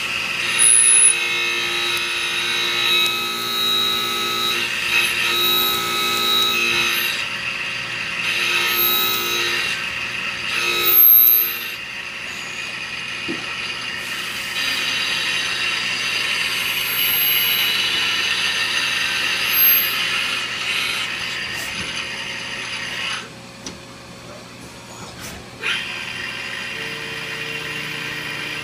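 Mori Seiki NLX2500-SY CNC turning centre machining a leaded-steel cam, its spindle and live-tool motors whining while the tools cut. The whine changes pitch and stops and starts between cutting moves, with a couple of louder bursts and a quieter lull near the end.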